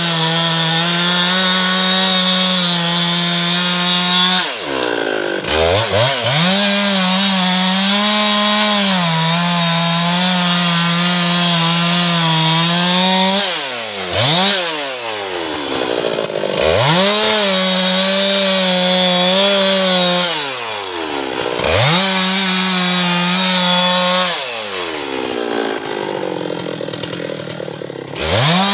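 Husqvarna 390 XP two-stroke chainsaw at full throttle cutting teak wood, its pitch sagging a little under load. About five times the throttle is let off, the engine falls toward idle and then revs straight back up.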